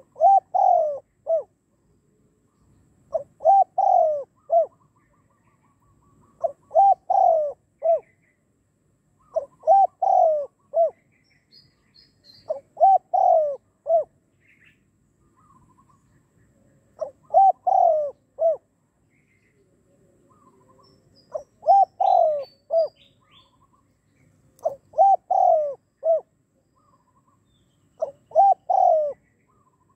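Spotted dove cooing: a phrase of three or four coo notes, each falling in pitch, repeated about every three to four seconds, nine times over.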